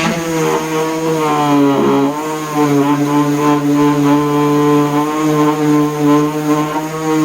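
DeWalt palm random orbital sander with a 3M Xtract Cubitron II disc switched on and running steadily against cedar, a motor hum with a clear pitch. The pitch dips briefly about two seconds in, then holds steady.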